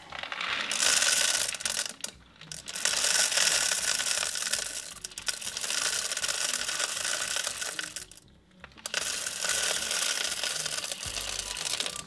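Coarse dishwasher salt poured from a cardboard box through a funnel into a dishwasher's salt reservoir: a steady hiss of pouring grains, broken by short pauses about two seconds in and around eight seconds in.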